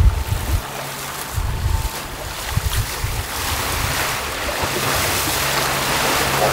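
Water rushing and splashing along the hull of a trimaran under way, with gusts of wind thumping on the microphone in the first two seconds. The rush grows louder about four seconds in, and a low steady hum joins it.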